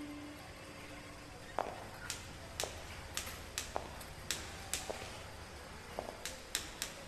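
Footsteps and a white cane tapping on a hard marble floor: sharp clicks about two a second, starting about a second and a half in.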